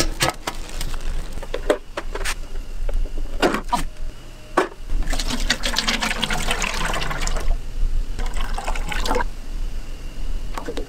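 Cooking oil pouring from a plastic jug into a stainless-steel deep fryer, a splashing pour that is loudest for a couple of seconds about halfway in. Before it come several sharp knocks.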